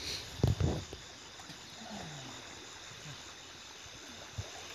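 Night insects chirring steadily at a high pitch over faint river hiss, with a few low thumps about half a second in.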